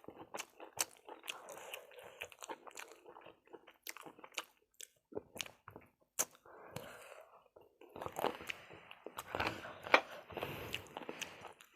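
A person chewing food, with many sharp wet mouth clicks; the chewing grows busier and louder about eight seconds in.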